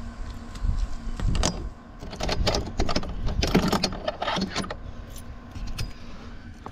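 Irregular knocks, clanks and rattles of gear being handled and moved about, loudest in the middle, over a low rumble.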